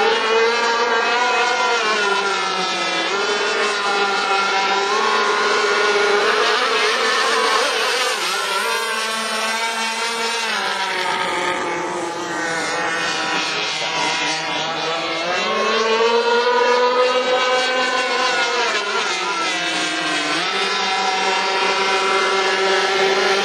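Quad-engine 1.8 m model racing catamaran running at speed across the water, its engines' pitch rising and falling as it passes and turns, sagging around ten seconds in and again near twenty seconds, climbing back in between.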